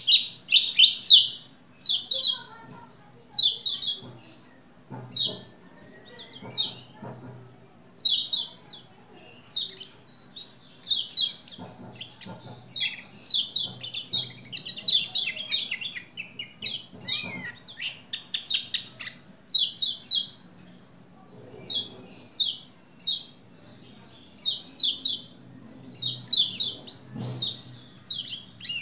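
Lombok white-eye (pleci, kecial kuning) singing in short bursts of rapid high chirps, about one burst a second with brief pauses. A faint low hum runs underneath.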